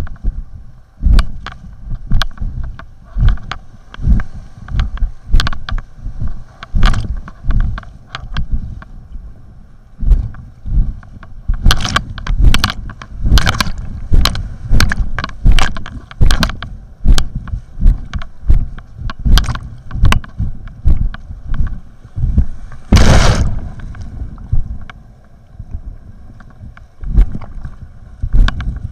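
Kayak paddle strokes splashing into fast river water in a quick, regular rhythm, more than one stroke a second, from an inflatable whitewater kayak in rapids. About two-thirds of the way through, a longer, louder rush of water breaks over the boat.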